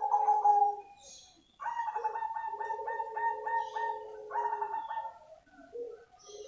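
Zebra dove (black perkutut cemani) singing: one short coo at the start, then a longer phrase of quick pulsed notes, about three a second, and another coo beginning near the end.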